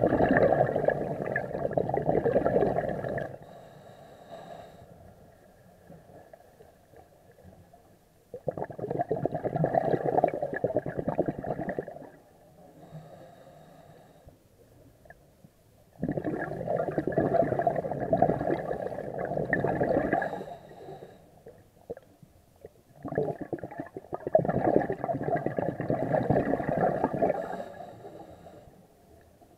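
Scuba diver's regulator exhausting bubbles underwater on each breath out. There are four bubbling bursts of three to four seconds each, about one every seven seconds, with quieter pauses between them while the diver breathes in.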